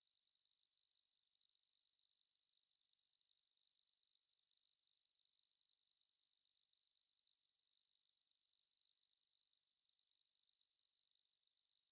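A steady, high-pitched electronic pure tone at about 4 kHz, unchanging in pitch and level: a simulated tinnitus ringing.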